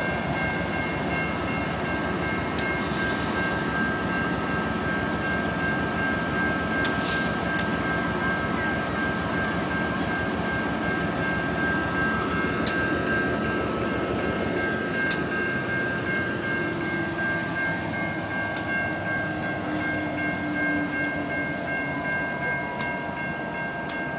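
Norfolk Southern freight train led by GE Dash 9-40CW diesel locomotive 8411 passing at close range, its engines giving a steady rumble. A steady high-pitched tone runs above it, and a handful of sharp clicks come from the wheels over the rails.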